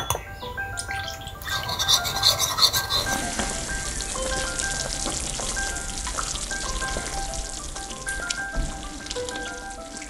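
Spoon scraping and stirring in a small ceramic bowl, mixing a white powder into a slurry, most clearly in the first few seconds. Then a steady sizzling hiss, like a pan of sauce cooking, under light background music.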